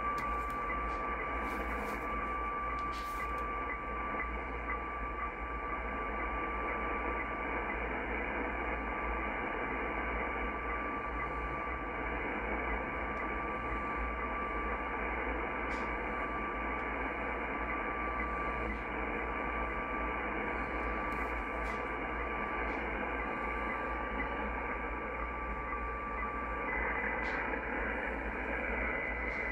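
Shortwave radio audio from a Yaesu FTdx10 tuned to a weather fax transmission: one steady tone over the hiss of band noise. Near the end that tone stops and a higher tone takes over, the fax signal shifting from one of its two keying tones to the other.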